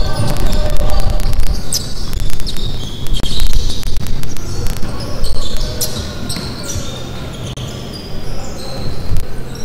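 Live basketball on a hardwood court: the ball bouncing, sneakers squeaking and scattered shouts from players. The action is busy at first and quietens near the end.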